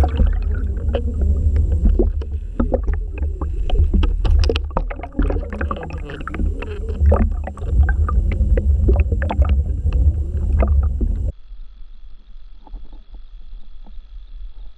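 Underwater camera moving through water: a steady low rushing rumble with many scattered clicks and knocks, which cuts off suddenly about eleven seconds in, leaving a quieter hiss.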